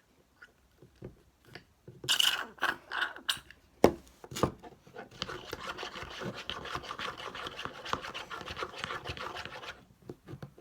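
Clear glue slime mixture being stirred and scraped round a bowl with a mixing tool: a steady scratchy rubbing for about five seconds in the second half. Before it come some handling noises and two sharp knocks.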